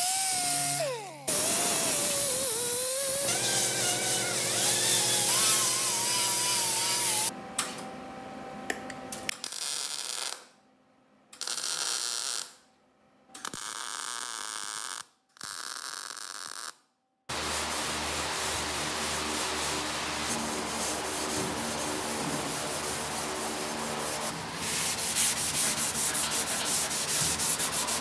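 Bodywork on a VW Beetle's steel floor pan. A small rotary grinder whines, drops in pitch about a second in, then grinds down welds for several seconds. About nine seconds in a MIG welder crackles in four short bursts with gaps between them, and from about seventeen seconds a Scotch-Brite pad is rubbed back and forth over the bare metal to scuff it.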